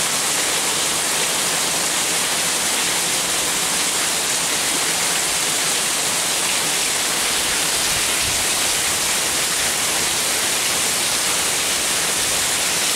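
Heavy rain pouring down steadily on a swimming pool and concrete patio, a dense, even hiss that does not let up.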